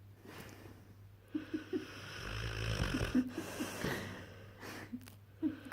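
A sleeping St Bernard–bullmastiff cross puppy snoring: one long rasping snore starting about a second in and lasting nearly three seconds, with a low rumble in the middle, then a couple of short snorts near the end.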